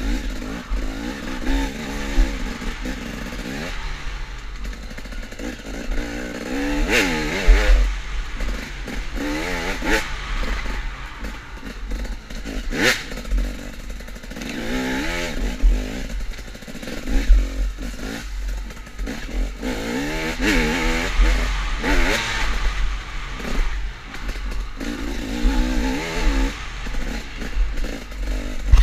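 KTM enduro dirt bike engine heard from on board, revving up and falling back every couple of seconds as it is ridden hard through a tight woods trail. Sharp knocks and clatter come from the bike hitting the terrain, over a steady low rumble.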